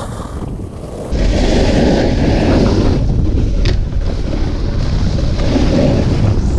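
Wind buffeting the microphone of a camera moving fast downhill, mixed with the rush of a snowboard sliding over packed snow. The noise gets abruptly louder about a second in.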